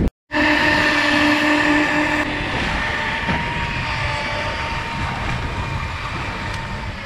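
Suzuki outboard motor running under throttle, a steady engine whine over churning water. The engine note changes about two seconds in, then holds steady.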